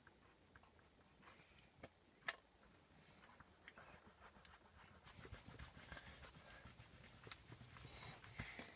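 Writing on paper: faint scratching of quick strokes, denser in the second half, with one sharp tap a little over two seconds in.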